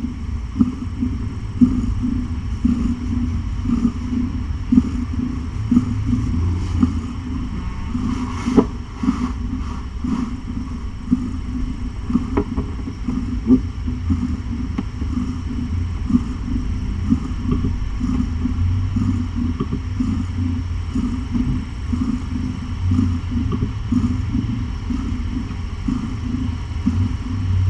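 Domestic cat purring steadily, a continuous low rumble right at the microphone.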